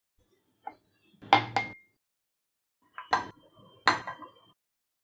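Metal kitchen utensils knocked and clinked together in short separate hits: a light tap, a quick double clatter, then two more clanks about three quarters of a second apart, the second leaving a brief ring.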